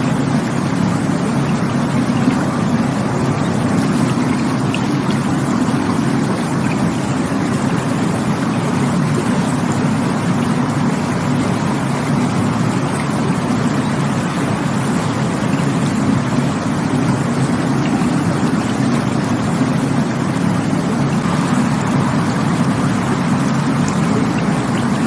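Rushing water of a stream or waterfall, a steady, even rush with no breaks or changes.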